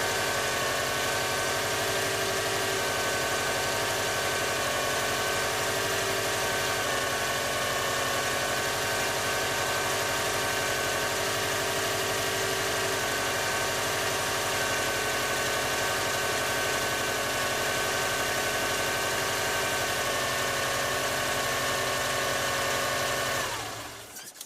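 Subaru Forester SF5's EJ20 flat-four engine idling with a steady whine over the engine note, the abnormal rubbing-like noise the owner traces to the back of the engine rather than the front belts. The engine is switched off about a second before the end.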